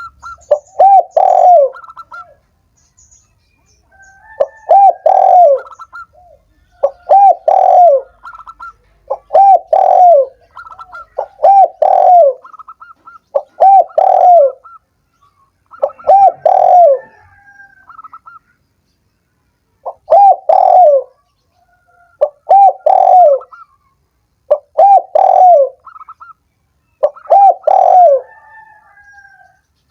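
Spotted dove (tekukur) cooing: phrases of a few quick coos ending in a drawn-out falling note, repeated about every two seconds, with a short pause around the middle. Faint, thin higher chirps sound between the phrases.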